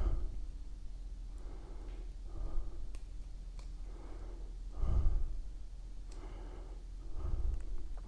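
A man breathing heavily close to the microphone: four slow breaths about two and a half seconds apart.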